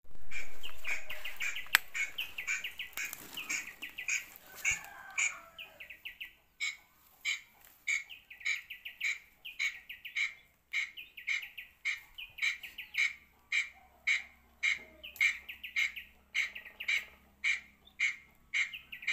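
Short, high chirping calls from a small animal, each a quick string of clicks, repeated about twice a second. A loud rushing sound opens and fades away over the first few seconds.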